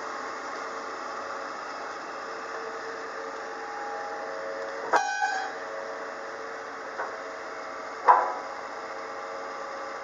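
Komatsu PW150 wheeled excavator running, its hydraulics whining in shifting tones as the boom and tilting bucket move. Two loud metallic clanks with a ringing tail come about five and eight seconds in, as the metal attachment knocks.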